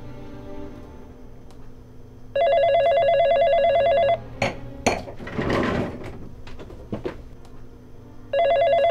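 Telephone ringing with a warbling trill: one ring of about two seconds, then a pause and a second ring starting near the end. Between the rings there are a few knocks and a scrape.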